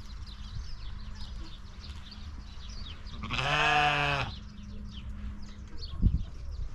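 A sheep bleats once, a single call about a second long, over steady high chirping in the background.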